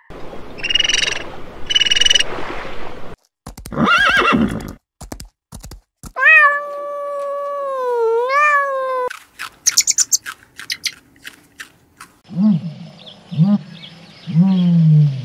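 A string of different animal calls one after another with short gaps, typical of an animal-sound compilation. The longest is one drawn-out call of about three seconds about six seconds in, dipping and then rising in pitch. Three low calls come near the end.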